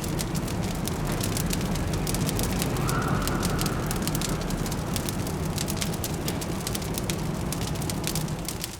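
Wood fire crackling with dense, irregular small snaps, over a steady low city rumble.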